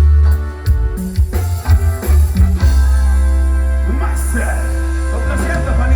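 Music with a strong, steady bass and sustained pitched notes, settling into a long held chord about halfway through.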